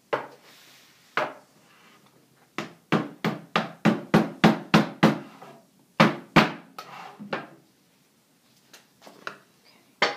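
Sharp knocks of a wooden-handled tool hammering on a tin of furniture wax, likely the lid being tapped down. There is a single knock, another a second later, then a quick run of about ten at roughly three a second, and two more soon after.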